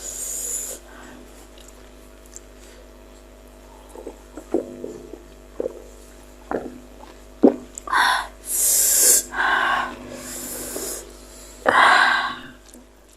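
A person breathing hard and sniffing after eating fiery-spicy meatballs: a few short wet mouth clicks in the middle, then several loud hissing breaths and one strong sniff or snort near the end.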